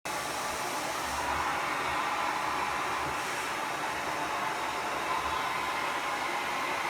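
Vacuum cleaner running steadily: a constant motor whine over rushing air.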